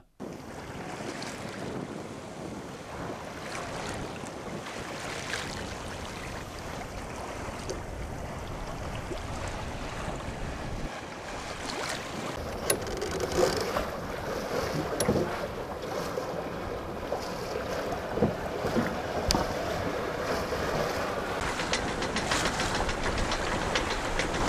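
Wind buffeting the microphone over water rushing and splashing around a sailing boat under way on choppy water. A steady rush, with sharper splashes and gusts after about twelve seconds.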